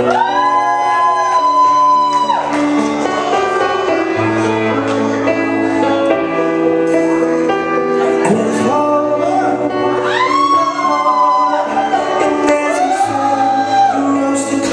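Recorded pop ballad played through a club sound system: a woman singing over sustained backing chords, with sung phrases at the start and again about ten seconds in.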